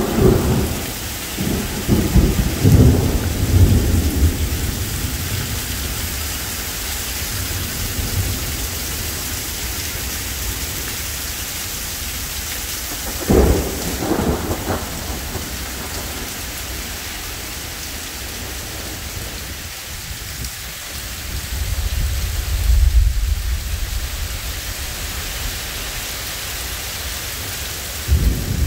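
Heavy rain pouring steadily in a thunderstorm. Thunder rolls low in the first few seconds, cracks sharply about halfway through with a short crackle after, rumbles again a few seconds later, and cracks once more near the end.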